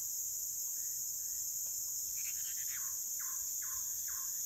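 Steady high-pitched insect chorus, with a bird calling short repeated notes over it, three in a row near the end.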